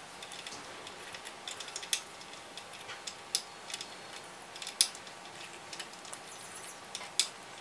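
Light, irregular metallic clicks and ticks, with a few sharper ones, from small parts being handled as the rocker cover is taken off a miniature inline two-cylinder four-stroke model engine.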